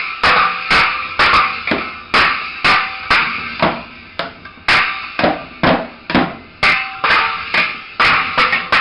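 Child banging away on a Fisher-Price Big Bang toy drum set with drumsticks, with uneven hits about two a second. A few deeper thuds come in the middle.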